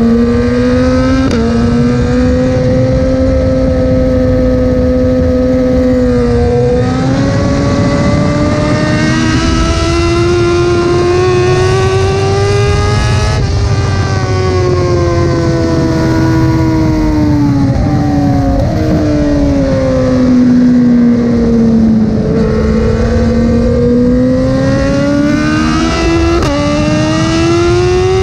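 Motorcycle engine running at speed, its pitch climbing and sinking as the bike accelerates and slows. Several gear changes are heard as abrupt jumps in pitch. Wind rush runs underneath.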